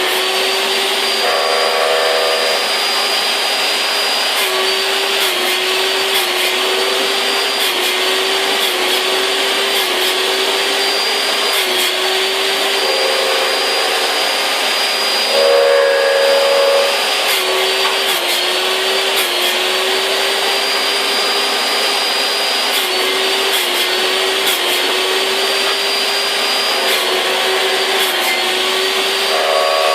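Electric wood-cutting machine's motor running steadily at high speed, with a high whine, and a couple of short, slightly louder spells partway through and near the end.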